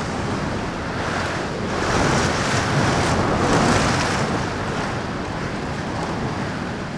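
Hurricane-force storm wind rushing outside an open window, with wind buffeting the microphone. A gust swells about two seconds in and eases off after about four seconds.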